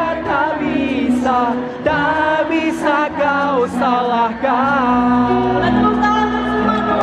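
A female pop singer singing a slow ballad live over the band, with ornamented, wavering sung lines over sustained low notes, amplified through an arena sound system.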